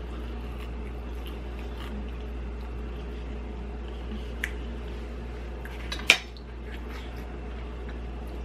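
Fork clinking against a dinner plate now and then while eating, with one sharp clink about six seconds in, over a steady low hum.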